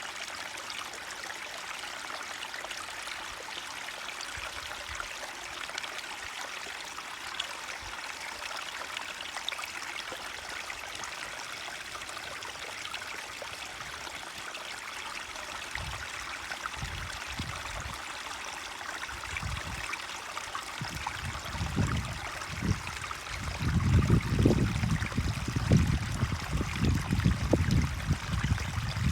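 A forest stream flowing and trickling steadily. Irregular low rumbling bursts come in past the middle and grow louder near the end.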